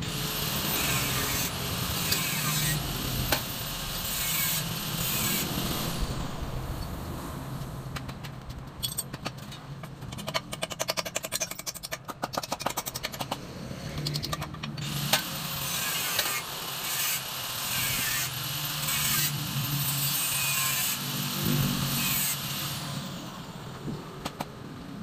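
Hand work on a motorcycle's metal frame: a series of rasping strokes, each about a second long, with a spell of rapid clicking in the middle.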